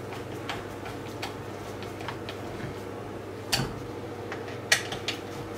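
Scattered metal clicks and taps of a hex key working the bolts of a chainsaw's recoil starter cover as they are tightened, with two sharper, louder clicks about three and a half and nearly five seconds in.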